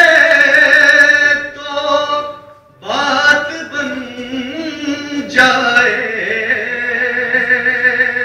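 A solo male voice reciting a naat, an Islamic devotional chant, in long held, wavering melodic phrases. There is a short breath pause about two and a half seconds in, and a new phrase starts a few seconds later.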